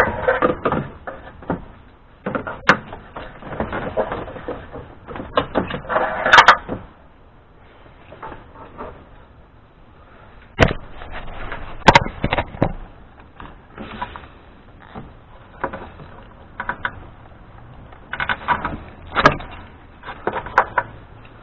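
Plastic clicks, knocks and rustling from hands twisting and pulling an old incandescent headlight bulb and its wiring connector out of a car's headlamp housing. The clicks come irregularly, with several sharp ones standing out.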